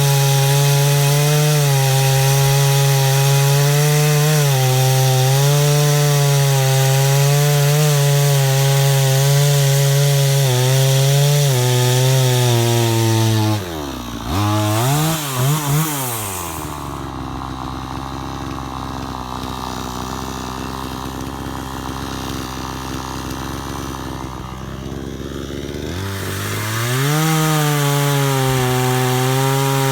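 PROYAMA 62cc two-stroke gas chainsaw running at high revs as it cuts wood, its pitch wavering under the load. About halfway through the throttle is let off, and the engine dips and blips twice before settling to a steady low idle. Near the end it revs back up to full speed.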